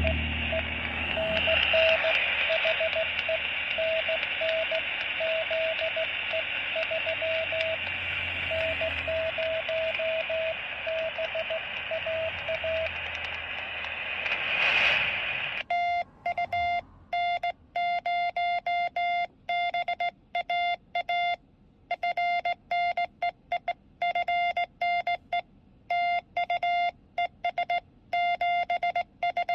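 Morse code tones from a Quansheng handheld radio's speaker. For the first half, a keyed tone of dots and dashes sounds through steady radio static. After a brief swell of noise about halfway in, the static drops out and a louder, buzzier Morse tone at a slightly higher pitch keys on and off with silence between the beeps.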